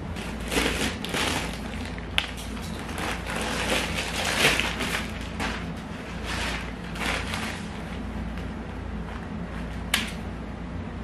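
Plastic parcel packaging crinkling and rustling in irregular swells as it is pulled open and handled, with a sharp click about two seconds in and another near the end.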